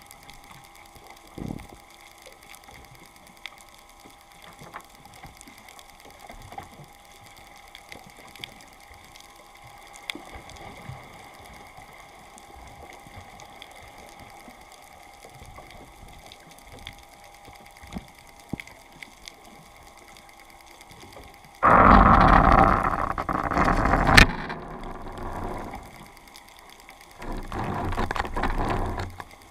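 Underwater sound picked up through a camera's waterproof housing: scattered short clicks and crackles over a faint steady hum. About 22 seconds in, a loud rough noise runs for over two seconds and ends in a sharp click. A second, shorter one comes near the end.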